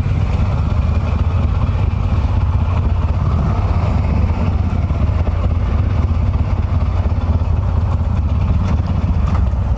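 Harley-Davidson V-twin motorcycle engines idling together at low speed, a steady low rumble.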